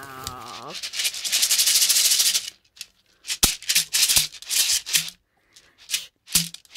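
Shekere, a red-dyed gourd wrapped in a net of red and white beads, being shaken: the beads rattle against the gourd in one continuous shake for about two seconds, then in several short separate shakes.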